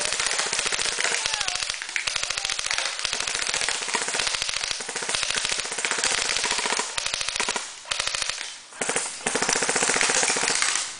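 Airsoft M4 rifle firing full-auto, a long rapid stream of evenly spaced shots. There are two brief pauses near the eight- and nine-second marks, and the firing stops shortly before the end.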